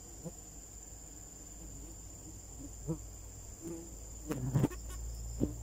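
Steady high-pitched insect sound, with a few short knocks and scrapes from hands and a tool working in a wooden stingless-bee hive box; the loudest cluster comes about four and a half seconds in.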